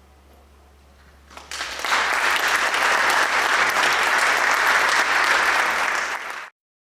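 Audience applauding: the clapping breaks out about a second and a half in, right after the final choral chord dies away, holds steady, then cuts off abruptly near the end.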